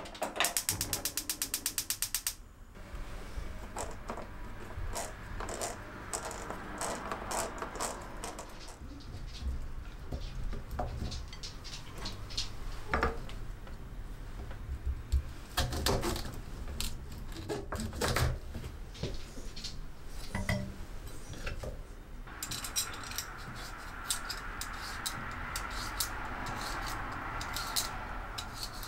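Gas stove burner igniter clicking rapidly, about ten clicks a second, for roughly two seconds. Then scattered knocks and taps of a knife and asparagus on a wooden cutting board.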